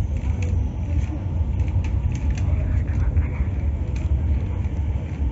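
Underground metro platform ambience: a steady low rumble, with a few faint clicks and distant voices.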